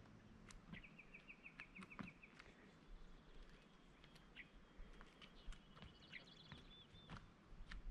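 A small songbird singing faintly: a quick trill of evenly repeated high notes about a second in, then a higher trill with a thin held note from about five to seven seconds in.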